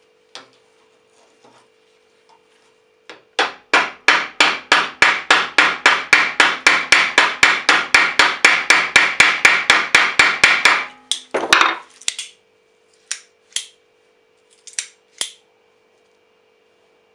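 Restored Rolcut secateurs being snapped open and shut over and over, a quick even run of sharp metal clicks at about five a second for some seven seconds, then a few single clicks.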